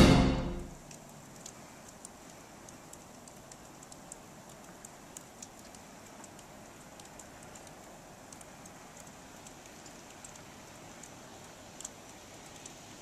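Music fades out within the first second, leaving the faint steady hiss of an outdoor snowfall with scattered light, high ticks.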